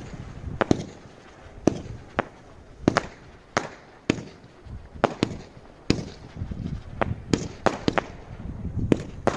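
Consumer fireworks going off in an irregular string of sharp bangs, about one or two a second, some closely doubled.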